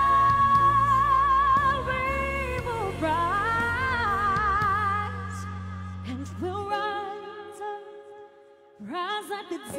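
Female pop singer singing live over a band, first holding a long note, then running through wavering melodic phrases with vibrato. About five seconds in, the band's bass drops away to soft held chords, and near the end her voice comes back in with a rising slide.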